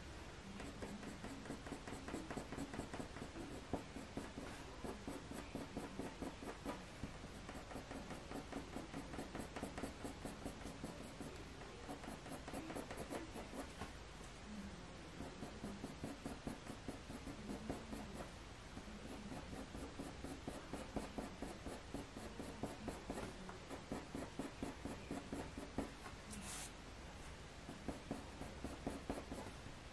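Faber-Castell Polychromos coloured pencil scratching on hot-press watercolour paper in rapid, short repeated strokes, drawing hedgehog fur.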